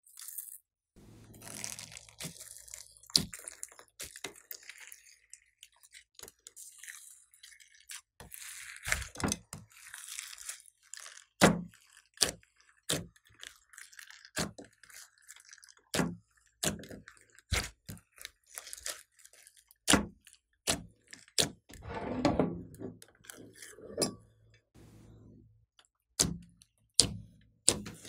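Glossy slime mixed with foam beads and glitter being folded, stretched and squeezed by hand: wet squelching broken by many irregular sharp pops and crackles.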